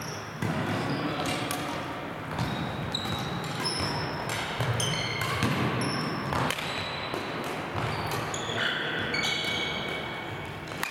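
Badminton play on a wooden sports-hall floor: sharp racket strikes on shuttlecocks and many short, high squeaks of players' shoes, echoing in the large hall.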